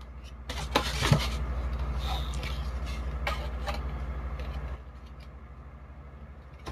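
A few sharp clicks and light scrapes of small hard parts being handled and fitted onto an airsoft rifle, over a steady low hum.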